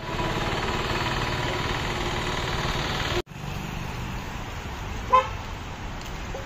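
Steady loud street noise that cuts off abruptly about three seconds in, then quieter road ambience with one short vehicle horn toot, the loudest sound, about five seconds in.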